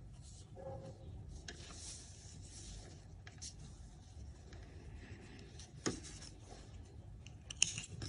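Faint rubbing and rustling of cotton yarn as a metal crochet hook is worked through stitches, with two sharp clicks, one about six seconds in and a louder one near the end.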